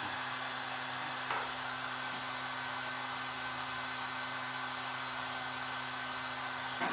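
Heat gun running steadily: a constant rush of blown air over a low electrical hum. There is a light click about a second in and another near the end.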